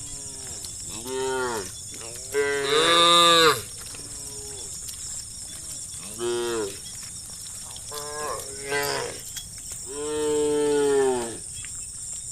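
Cows mooing, about six calls one after another. The loudest is a long moo about two and a half seconds in, and another long one comes near the end.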